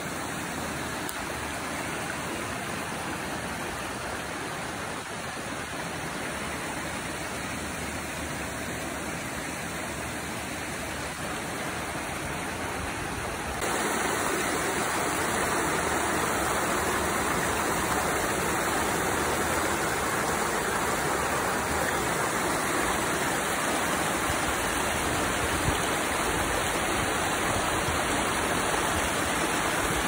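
Creek water rushing over rocks and down a small cascade: a steady, even rush that turns suddenly louder about halfway through.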